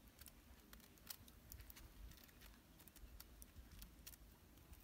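Faint, irregular little clicks and crackles of a cooked egg's shell being cracked and picked off by hand.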